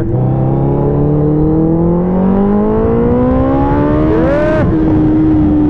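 Suzuki Hayabusa's inline-four engine pulling hard in one gear, its pitch rising steadily for about four seconds. A brief rise-and-fall blip with a short hiss follows, and the engine then holds a steady note.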